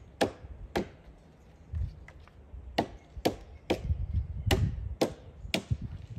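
Wooden mallet striking a chisel to cut out a slot in a timber beam. There are about eight sharp knocks: two within the first second, then six more from about three seconds in, at roughly two a second.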